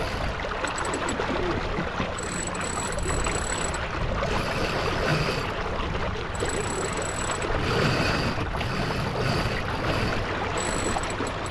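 Steady rush and splash of water along the hull of a J24 keelboat sailing under way.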